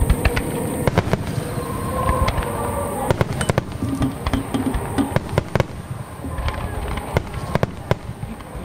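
Aerial firework shells bursting in a rapid, irregular series of sharp bangs, several a second at times, over a continuous low rumble.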